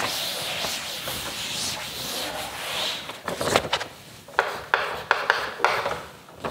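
Board duster rubbing across a chalkboard, a steady scrubbing for about three seconds, then short scratches and taps of chalk writing on the board.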